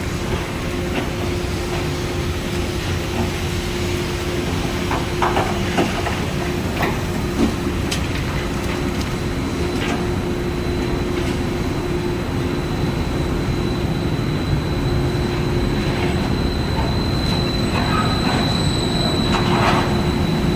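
Industrial rotary sawdust dryer running: a steady low rumble with a constant hum and a thin high whine, broken by scattered short knocks and rattles.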